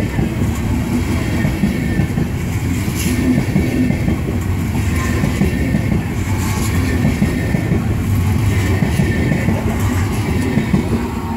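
Passenger coaches passing close at speed: a steady rumble of steel wheels on the rails with a light clickety-clack of the wheelsets, tailing off as the last coach goes by near the end.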